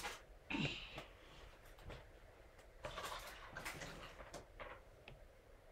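Faint taps and rubbing of a stylus on a tablet's glass screen while handwriting is erased: a few short scratchy strokes between scattered light taps.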